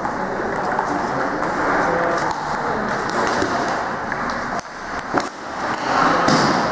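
Table tennis rally: the celluloid ball clicking off the rackets and bouncing on the table at irregular intervals, over a steady hubbub in the hall.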